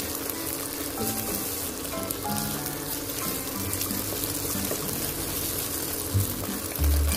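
Egg sizzling in hot oil in a nonstick wok as it is stirred and pushed about with a plastic slotted spatula, over background music.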